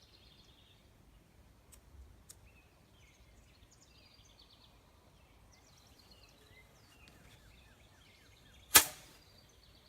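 Faint bird chirps, then near the end a single sharp, loud bang as a bottle rocket goes off from the barrel of a BB gun.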